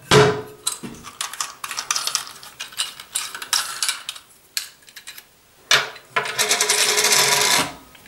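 Clicks and knocks of a chrome push-button toilet flush button and its plastic fittings being handled against a ceramic cistern lid, then about two seconds of continuous scraping rattle near the end.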